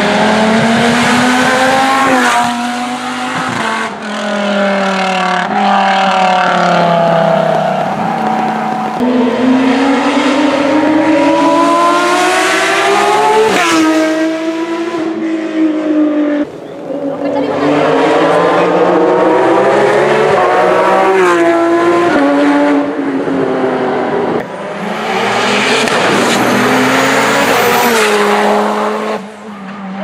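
Racing cars at full throttle, one after another, the first a white Lamborghini. Each engine note climbs steadily in pitch and drops sharply at every upshift, many times over. Near the end a high thin whine rises over the engine.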